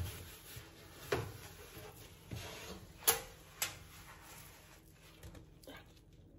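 Several light knocks and clicks, five or so spaced roughly a second apart, the sharpest about three seconds in, like household objects being handled.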